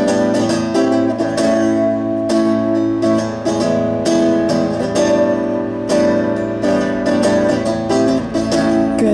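Guitar strummed in a steady rhythm of chords, with no singing: an instrumental passage of a live song.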